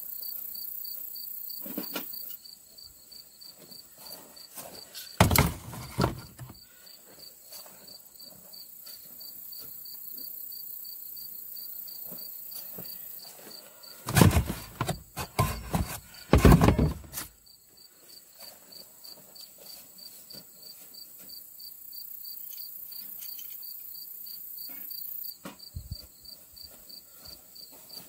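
Insects chirping in an even, steady pulse, with a thin high hiss that fades in and out. It is broken twice by loud knocks and rustling of things being handled, briefly about five seconds in and for a few seconds from about fourteen seconds in.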